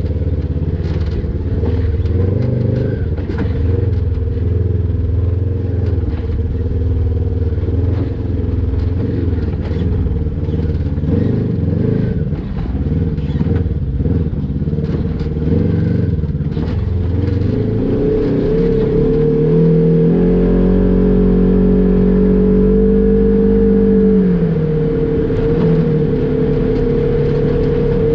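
Polaris RZR XP 1000 side-by-side's twin-cylinder engine running at low revs while crawling over rock, with frequent knocks and clatter. About two-thirds through, the revs rise and are held higher for a few seconds, then drop back.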